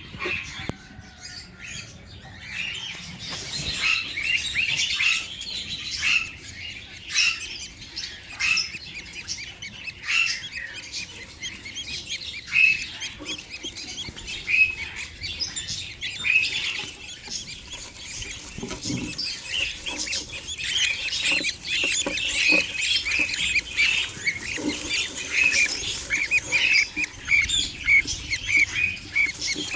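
A group of budgerigars chirping and chattering, with many short calls overlapping. The calls grow busier and louder in the second half.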